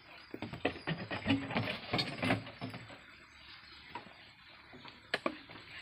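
A plastic jerry can being handled and set down on a cab floor: a quick run of hollow knocks and rattles over the first three seconds, then two sharp clicks near the end.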